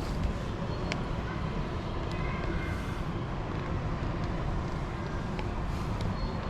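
Steady low rumble of vehicle and traffic noise, with a few faint ticks.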